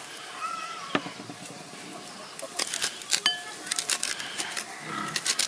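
Wide metal knife blade scraping the seeds and pulp out of a halved Feroniella lucida fruit into a bowl, in several clusters of quick, scratchy strokes.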